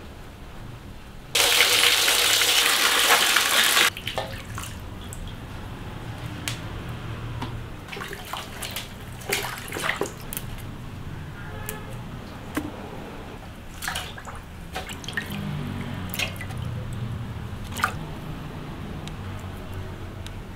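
A loud gush of water for a couple of seconds near the start. Then splashing and swishing as leafy greens are washed by hand in a metal basin of water, with scattered light knocks and drips.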